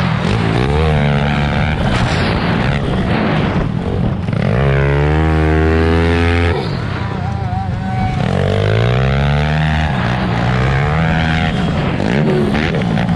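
Pit bike engine revving hard, climbing in pitch and dropping off again several times as the rider ahead works the throttle through turns and jumps, over a rush of wind on the helmet camera.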